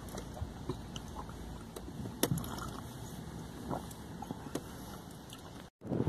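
Steady low rumble inside a parked car, with a few faint clicks and taps of small handling noises. The sound breaks off briefly near the end.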